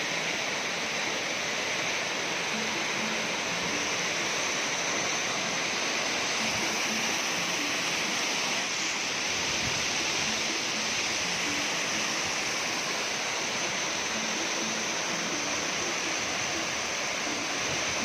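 Steady rush of a waterfall's falling water, an even hiss with no breaks or changes.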